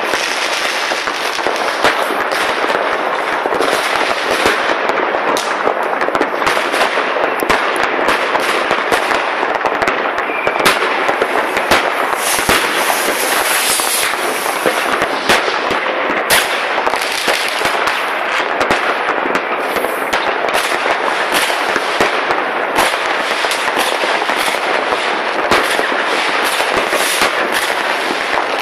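Fireworks and firecrackers going off all across a town at once: a dense, unbroken crackling with many sharper bangs.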